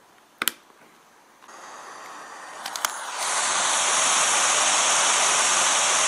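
White noise from a DIY wake-up light's white-noise generator, played through headphones. A click comes about half a second in; the hiss then fades in faintly, a few clicks sound near the middle, and about three seconds in it jumps to a loud, steady hiss.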